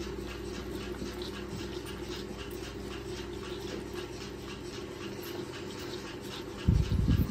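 Calf sucking milk from a plastic feeding bottle's teat, a steady sucking rhythm about twice a second. A brief, loud low rumble near the end.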